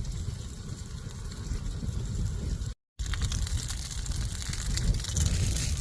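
Strong wind gusting around the tent and buffeting the microphone, a low rumble with crackly rustling on top. The sound cuts out completely for a moment about three seconds in.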